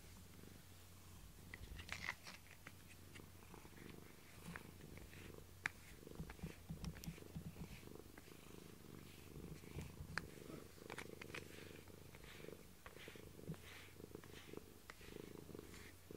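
Domestic cat purring steadily close to the microphone, with scattered small clicks and rustles.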